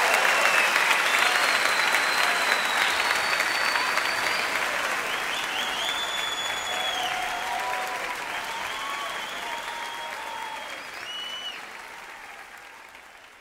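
Large concert audience applauding, with cheering voices and a few high whistles, fading out gradually to silence.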